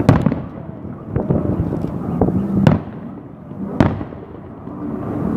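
Salute fireworks shells bursting overhead: a sharp bang right at the start, two more about two and a half and four seconds in, and smaller cracks between, with a rumbling echo after each.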